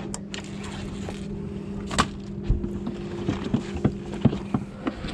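Scattered knocks and clicks of a small action camera being handled, over a steady two-tone hum that stops about three seconds in.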